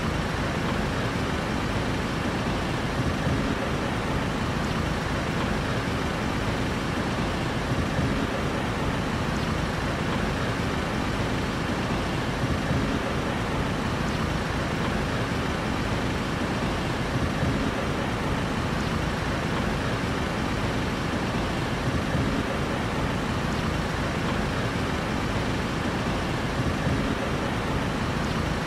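Steady street traffic noise: an even rumble of road vehicles with no single car passing or horn standing out.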